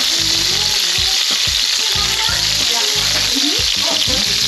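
Longganisa sausages sizzling steadily in hot oil in a nonstick frying pan, turned with a wooden spatula that knocks and scrapes against the pan.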